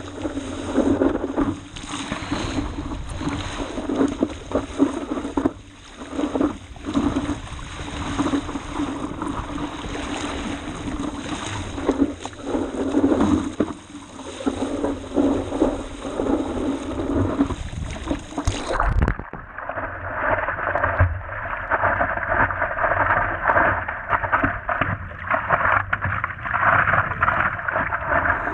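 Water rushing and splashing against the nose of a stand-up paddleboard running downwind, with wind buffeting the microphone, rising and falling in surges. About two-thirds of the way through the sound turns suddenly muffled and duller.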